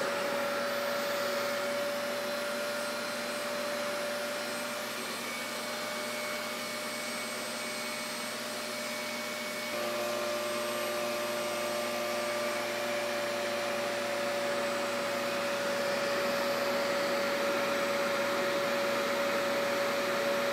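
RevAir reverse-air blow dryer running on low heat at suction (tension) level 4: a steady whooshing rush of air with a constant motor whine as it draws a section of hair into its wand. The tone shifts slightly about halfway through.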